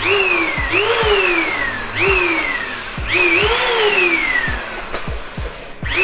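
iSuper handheld cyclone vacuum cleaner running with its floor hose fitted, sucking hard. The motor's whine jumps up and then slides down in pitch about once a second, over a loud rush of air, with low knocks in between.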